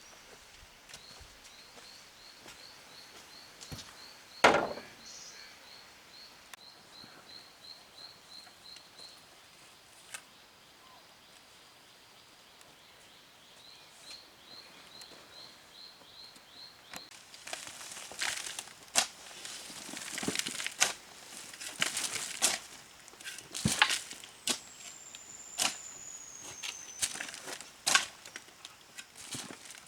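Outdoor hand work: one loud knock about four seconds in, then from about halfway on a busy run of sharp knocks and scrapes. A high chirp repeats about three times a second in two runs during the quieter first half, and a single falling whistle-like note sounds near the end.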